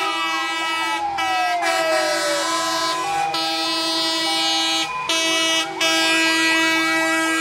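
Fire engine sirens and horns sounding together: one siren winds down in pitch over the first couple of seconds while steady horn tones hold underneath. From about five seconds in, a fast yelp siren sweeps up again and again, several times a second.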